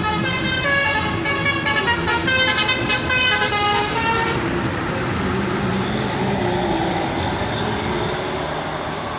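Tour bus telolet horn playing a quick tune of many short stepped notes, which stops about four seconds in; after it only the steady rumble of engine and road noise.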